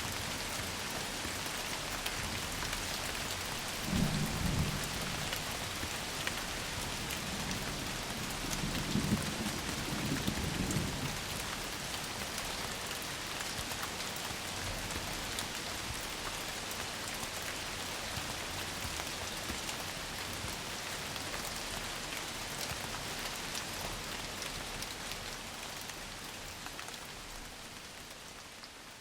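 Theatre sound effect of steady rain, with a rumble of thunder about four seconds in and another from about eight to eleven seconds. The rain fades out near the end.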